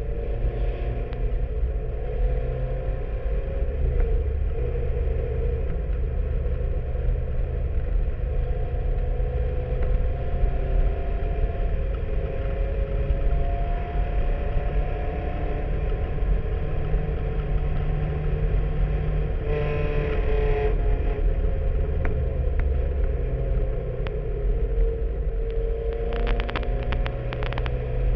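Fiat 124 race car's four-cylinder engine running hard at racing speed, heard from the open cockpit, its revs rising and falling as it is driven through the gears and corners. There is a short rush of noise about two-thirds of the way through, and a quick string of clicks and rattles near the end.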